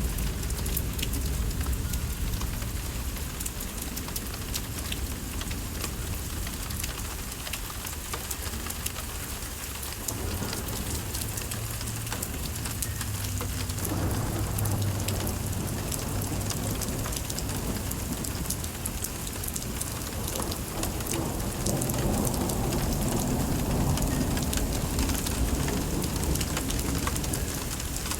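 Steady rain of a thunderstorm pattering down, with a low rumble of thunder coming in about a third of the way through and rolling again louder in the latter part.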